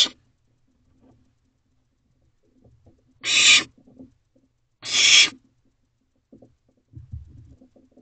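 Barn owlets giving two harsh hissing screeches, each about half a second long and about a second and a half apart, with a soft low shuffling of movement near the end.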